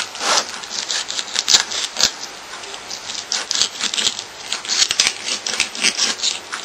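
Knife cutting a trout fillet away from the backbone, the blade scraping along the fish's bones in an irregular string of short, scratchy strokes.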